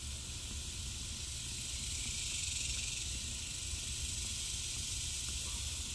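Steady background noise: an even hiss with a low rumble underneath, and no distinct clicks or knocks from the hand-tightening.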